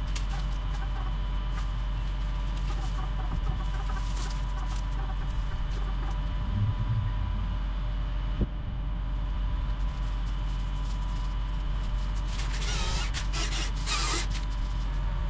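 Chickens clucking, with calls coming and going toward the end, over a steady low rumble.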